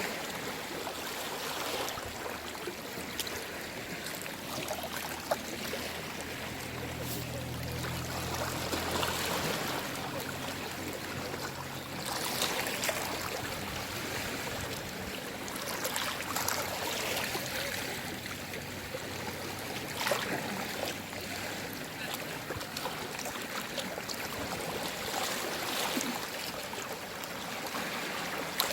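Small waves of a calm sea washing and lapping, the wash swelling every few seconds.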